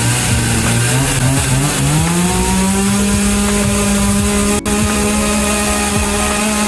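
Chainsaw engine revving up about two seconds in, then held steady at high speed.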